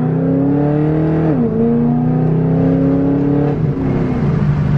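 The 6.2-litre V8 of a full-bolt-on tuned 5th-gen Chevrolet Camaro SS pulling under acceleration in fourth gear, heard from inside the cabin. The engine note climbs in pitch, dips about a second and a half in, climbs again, and falls away near the end.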